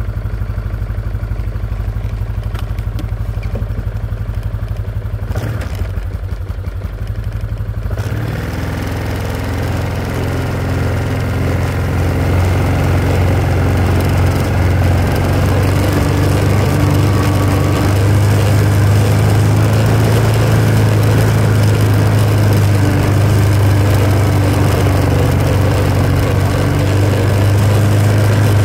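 A vehicle engine running steadily at idle, then picking up and running louder about eight seconds in.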